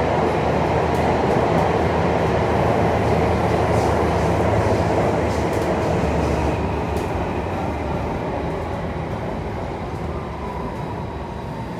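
Alstom C830 metro train running, heard from inside the passenger car: a steady rumble of wheels on rail and rushing air. It grows a little quieter over the last few seconds.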